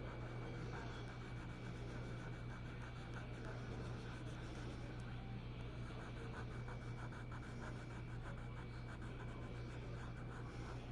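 Rapid scratchy strokes on paper from drawing or painting a picture, over a steady low electrical hum and a faint high steady whine.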